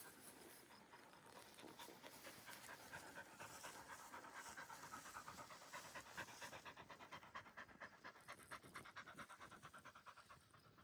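A dog panting faintly in a quick, even rhythm.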